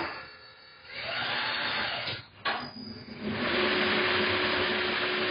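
Compressed air hissing at a pneumatic tyre changer: a spell of about a second, a sharp click, then from about three seconds a longer, louder hiss with a steady whine in it.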